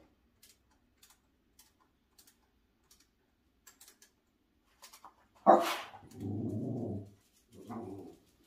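A dog barks once, loudly, about five and a half seconds in, then growls in two stretches, the first about a second long and the second shorter. Faint scattered clicks come before the bark.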